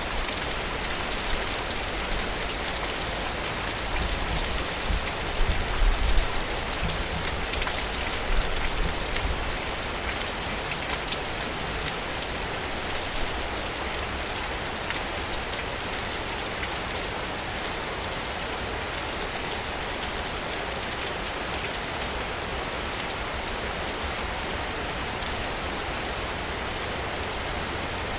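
Steady rain falling in a city, an even hiss of drops, with a few louder low rumbles between about four and nine seconds in.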